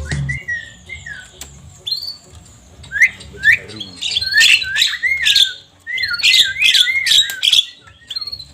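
Javan myna (jalak kebo) calling: repeated short whistled chirps that rise and fall, mixed with harsh clicking squawks. The calls come thickest in the middle and later part.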